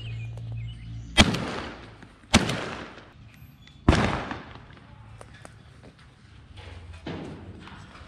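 Three shots from a Benelli SBE2 12-gauge semi-automatic shotgun firing Federal 7.5 birdshot, the second about a second after the first and the third about a second and a half later. Each shot is a sharp crack followed by a fading echo.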